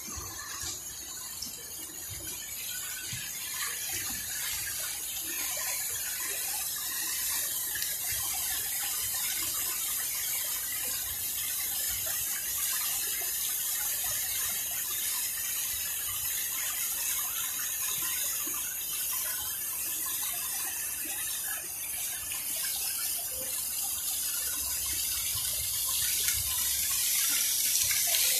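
Pond fountain: a vertical water jet falling back into the pond with a steady splashing hiss, growing a little louder near the end.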